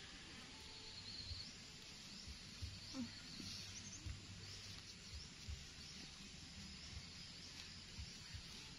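Quiet outdoor ambience with faint high-pitched chirping in the background and a few soft low knocks.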